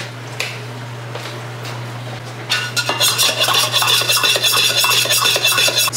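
Coffee being mixed in a cup. Quiet handling noise at first, then about two and a half seconds in a loud, dense, scratchy rubbing noise starts and runs on.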